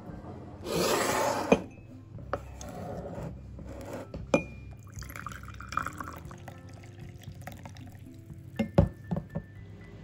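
Tea poured from a glass French press into a ceramic cup, with sharp glass-and-ceramic clinks, several of them in quick succession near the end. A short, loud rush of noise comes about a second in.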